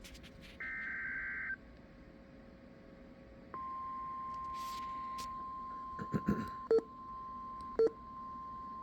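Emergency Alert System SAME header: a rapid, screechy data burst about a second long, then, about two seconds later, a steady single-pitch weather radio alert tone that holds on. Several crackles and two short, loud pops break into the tone between about six and eight seconds in.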